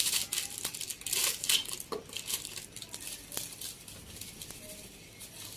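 Plastic salt packet crinkling and rustling as it is torn open by hand, with a few small clicks, dying down near the end.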